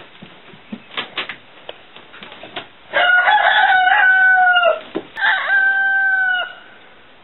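Rooster crowing twice, two long held calls about half a second apart.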